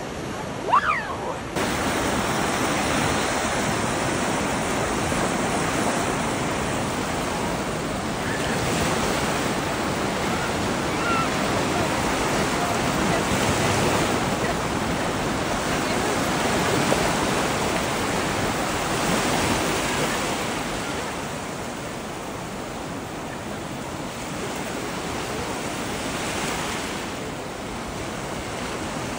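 Surf breaking on a sandy beach: a steady wash of waves that swells and fades every five or six seconds.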